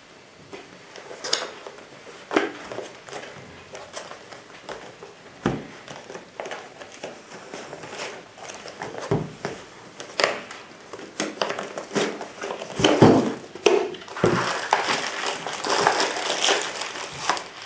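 Rifle-scope box and its packaging being opened and handled: scattered clicks and knocks, with crinkling of packaging that becomes denser in the last few seconds.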